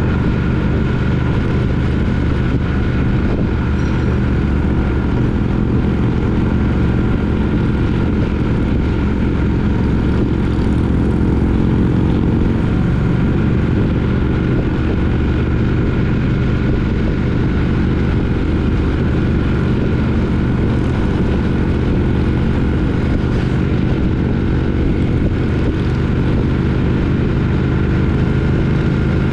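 Triumph Speed Twin 900 parallel-twin engine running at a steady cruise, its pitch holding level throughout.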